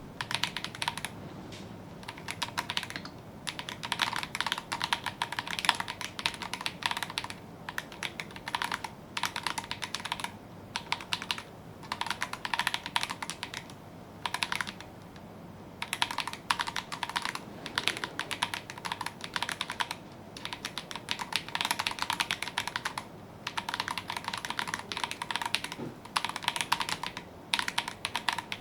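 Typing on an ABS gasket-mount mechanical keyboard (Akko 5075B Plus) with Akko Creamy Purple Pro switches: fast runs of keystroke clacks in bursts of a few seconds, with brief pauses between them and a longer pause about halfway through.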